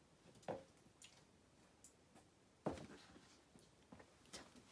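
Near silence: quiet room tone broken by two brief soft sounds, one about half a second in and a louder one a couple of seconds later.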